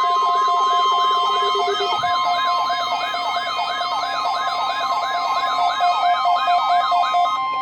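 Weather radio receiver's siren alert, set off by the NOAA Weather Radio weekly test: a rapid rising-and-falling wail about three times a second that cuts off near the end. Under it runs the broadcast's steady 1050 Hz warning alarm tone, and a lower pulsing beep stops about two seconds in.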